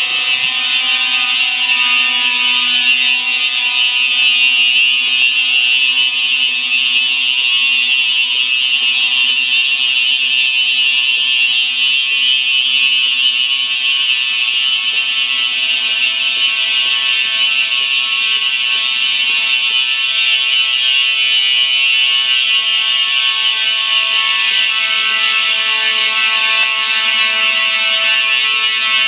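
Fire alarm bells ringing steadily without pause, a continuous metallic clanging with no on/off pattern.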